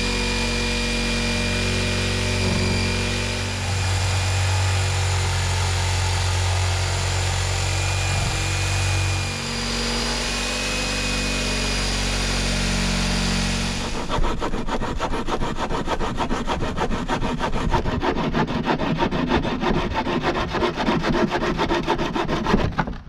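Corded power saw running steadily as it cuts through wooden board siding, its pitch wavering a little under load. About 14 seconds in it stops and a hand saw takes over, with quick repeated strokes through the wood.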